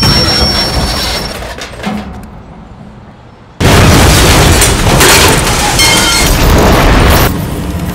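Sound-library explosion effects. A loud blast dies away over about three seconds, then a second explosion hits suddenly about three and a half seconds in and rumbles on loudly for several seconds.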